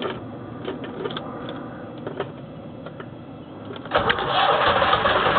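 A few light clicks of keys at the ignition switch, then about four seconds in the Beta Marine BD3 three-cylinder diesel tug engine starts and runs steadily. It is being restarted shortly after it was stopped, with no preheating.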